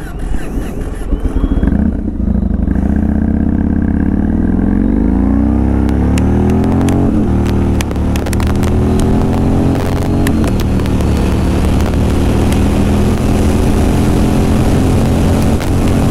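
Yamaha MT-01's big air-cooled V-twin accelerating hard. The engine note climbs, drops at an upshift about seven seconds in, climbs again and drops at a second upshift near ten seconds, then holds steady.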